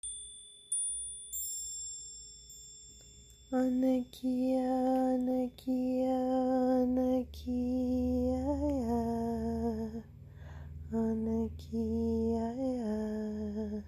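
A few high chime strikes ringing out, then a voice chanting long, held notes at a steady pitch, each a second or so long with short breaths between, over a low drone that comes in partway through.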